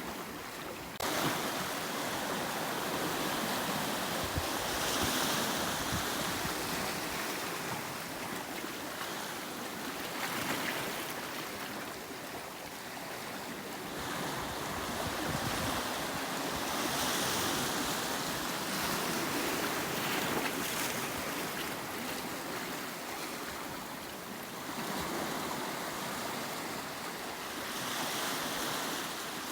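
Sea waves washing and breaking on a rocky volcanic shore: a continuous surf noise that swells and falls back every few seconds.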